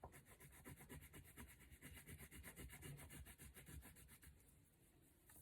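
Brown crayon scribbling on paper in quick, even back-and-forth strokes, faint, stopping about a second before the end.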